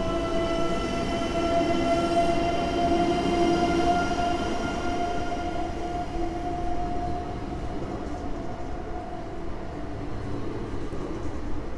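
Newag Impuls electric multiple unit moving along the platform: a steady electric whine from its traction drive over the low rumble of the wheels, the whine fading away in the second half.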